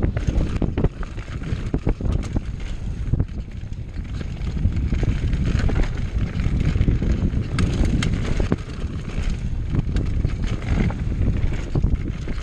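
Mountain bike riding fast down a rough bike-park trail: wind buffets the microphone while the bike rattles and knocks over bumps and loose ground, with many sharp clacks scattered throughout.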